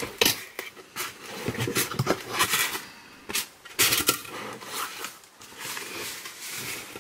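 Packaging being opened and handled by hand: irregular rustling, crinkling and scraping with a few sharp light knocks, tapering off near the end.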